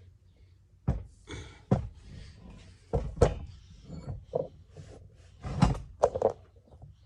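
Heavy metal parts of an old pipe vise clunking and knocking on a workbench as they are laid down and handled: about eight irregular knocks, the loudest a little over three seconds in and again near five and a half seconds.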